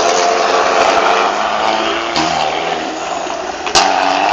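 Hill-climb competition cars' engines running at low revs as the cars roll back down the course after their run, the engine note changing about halfway as another car comes through. A single sharp crack near the end.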